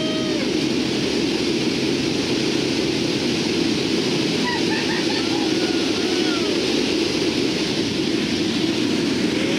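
Cabin noise inside the cargo hold of a Lockheed C-130T Hercules: its four Allison T56 turboprop engines and propellers running in a loud, steady hum.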